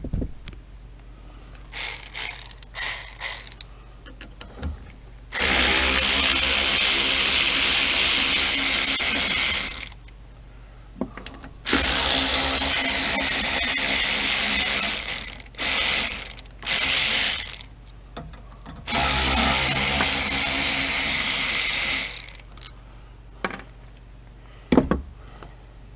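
A power driver or ratchet with a 5/16 socket spinning in several runs of a few seconds each, starting and stopping abruptly, as it backs out the bolts holding an engine cover. It follows a few brief short noises.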